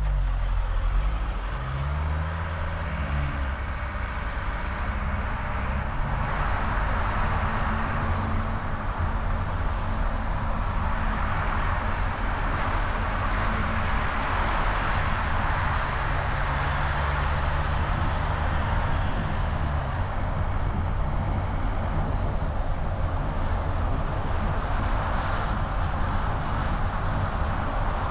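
A car driving on the road, heard from a camera mounted on its hood: a low engine rumble whose pitch shifts in the first few seconds, under a steady rush of wind and road noise that grows louder about six seconds in.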